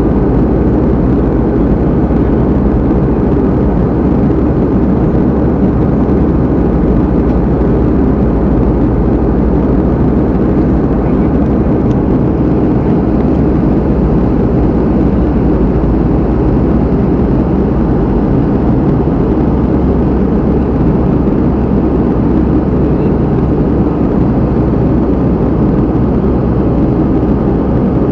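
Steady low rumble of a moving vehicle, unchanging in level and pitch.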